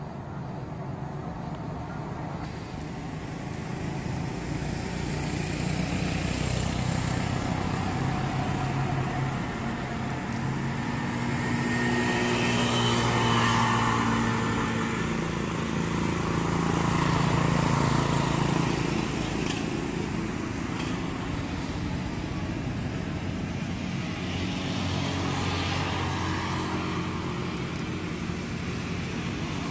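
Motor-vehicle engine noise, like passing traffic: a steady drone that swells twice in the middle and then eases off.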